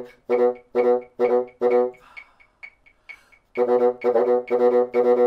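Bassoon playing a fast single-tonguing exercise: short, separately tongued notes repeated on one pitch, about three a second. The run breaks off about two seconds in, with only faint breathy noise for a second and a half, then starts again. The player hears the last note of each pattern going sharp from too much embouchure pressure.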